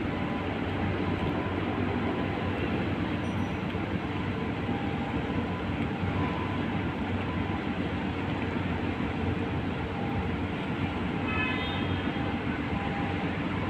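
Marine engine running in a steady low drone, with an even rushing noise over it.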